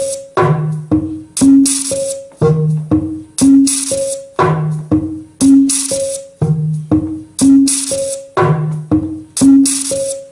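Electronic music played on a Teenage Engineering OP-1 synthesizer: a short loop of clipped synth notes stepping between a low bass note and a few higher notes, with a hissy, rattle-like percussion hit on each beat. The loop repeats about every two seconds.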